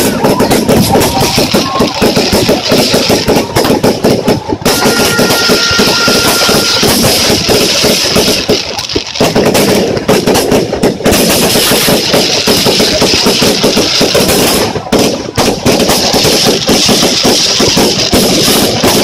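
Fireworks going off in rapid, nearly continuous volleys of bangs and crackles, with a few brief lulls. It sounds loud, like rapid gunfire.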